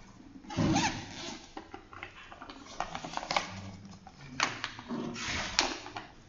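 Classroom background noise: scattered light clicks and knocks, with one louder noise about half a second in.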